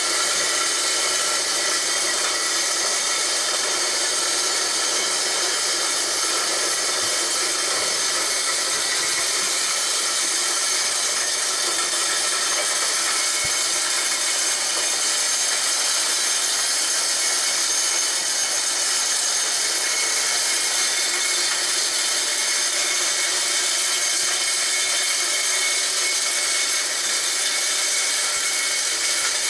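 Homemade corn grinder built from a water pump, running steadily: a continuous high whine over a grinding noise.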